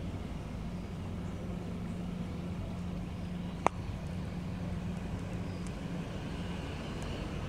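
Steady low hum of an aquarium pump running. A single sharp click about three and a half seconds in.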